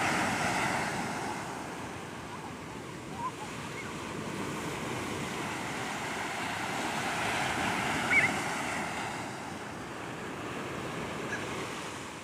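Surf breaking and washing up a sandy beach, a steady rush that swells and eases over several seconds, with wind buffeting the microphone. Two short high cries cut through, the louder about eight seconds in.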